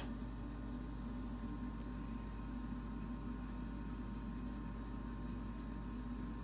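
A single click at the very start, then a steady low hum.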